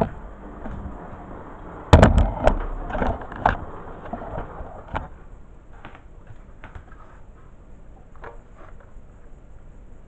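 Handling knocks and clatter: a loud burst of knocks about two seconds in, followed by scattered lighter taps and clicks.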